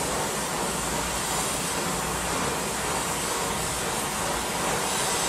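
Oxy-fuel torch flame hissing steadily as it heats the steel clip on a leaf spring's end.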